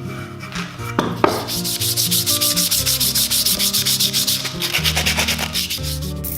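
Rapid back-and-forth sanding strokes by hand, about five a second, over background music with a steady bass line. Two sharp knocks come about a second in, and the strokes stop near the end.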